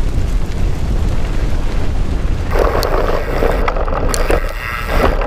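Downhill mountain bike rolling fast over a dirt trail, with heavy wind rushing over the microphone. About halfway through, tyre noise on the loose dirt grows louder, with a few sharp rattling knocks from the bike.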